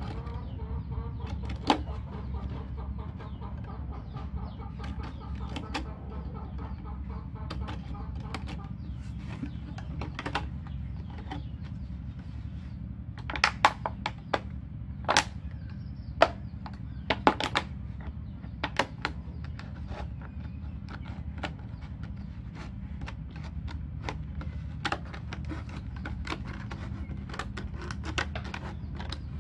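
Scissors cutting a thin plastic water bottle: sharp, irregular snips and crackles of the plastic, with a quick run of them about halfway through, over a steady low hum.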